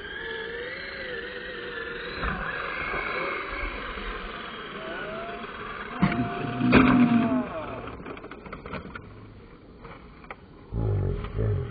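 Slowed-down, lowered audio of brushless electric RC trucks: motor whines gliding up and down in pitch, with sharp knocks about six seconds in as a truck tumbles. There are low rumbles near the end.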